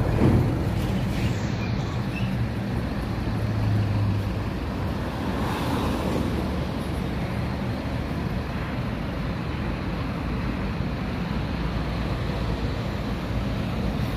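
Steady low rumble of road vehicles and engines, with a faint steady engine hum underneath that swells briefly about three seconds in.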